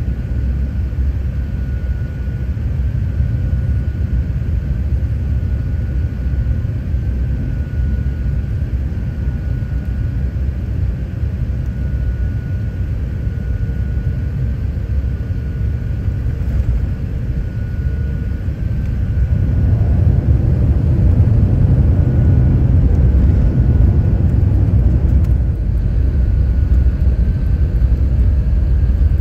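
Cabin noise of a jet airliner rolling on the ground after landing: a steady low rumble of engines and wheels, with a faint high whine that comes and goes. The rumble grows louder about twenty seconds in.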